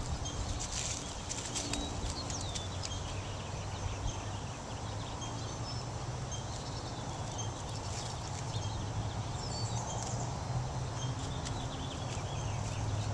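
A dog pushing through tall grass and wildflowers, the stems rustling and crackling in spells, with a few short bird chirps and a steady low hum behind.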